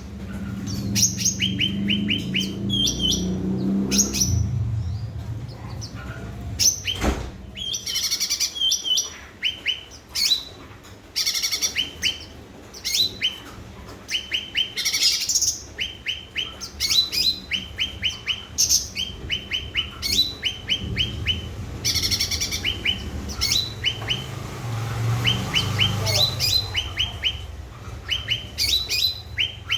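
Cucak ranting songbird singing gacor: long runs of short, sharp chirps in quick succession. A low hum runs underneath.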